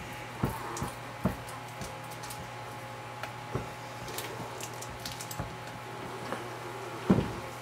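Wooden honey frame being worked down and up through a spiked-roller uncapper, the wax cappings squishing and scraping, with several sharp knocks of the frame against the uncapper box, the loudest near the end. A low steady hum runs underneath.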